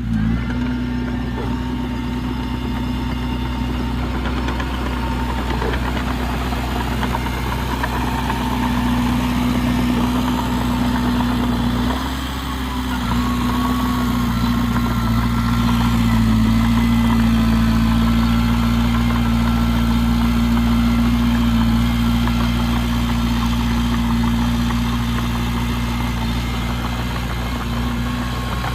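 Heavy diesel engine of an earthmoving machine running steadily, dipping briefly about twelve seconds in and then running a little louder.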